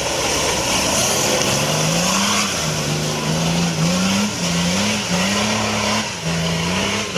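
Off-road competition vehicle's engine revving under load, its pitch climbing and dropping back again and again about once a second, over a steady hiss.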